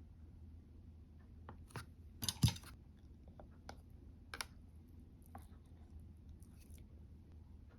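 Scattered light clicks and taps, with a short louder clatter about two and a half seconds in, over a faint low hum.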